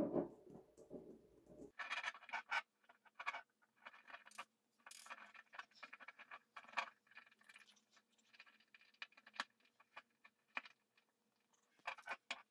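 Small coloured pebbles in a glass jar crunching and rattling against the glass as lucky bamboo stalks are pushed and twisted into them, in irregular scratchy bursts. It begins with a duller, lower handling noise that cuts off suddenly after about a second and a half.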